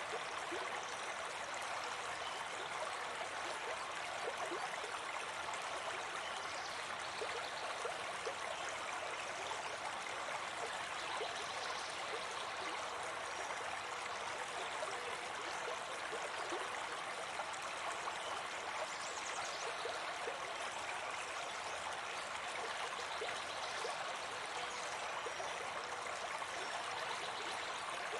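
Steady rushing of running water, like a stream, with a few faint high chirps scattered through it.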